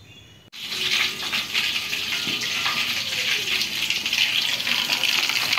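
Fish frying in hot oil: a steady crackling sizzle that starts abruptly about half a second in.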